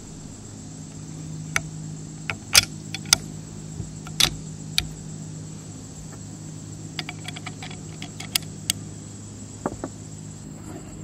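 Sharp metal clicks and clinks as the steel bolt parts of a rifle action are fitted into the receiver and the bolt handle is worked, coming in scattered clusters over a steady low hum.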